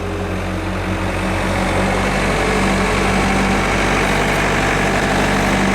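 Skid steer engine running, getting a little louder over the first couple of seconds, then holding steady.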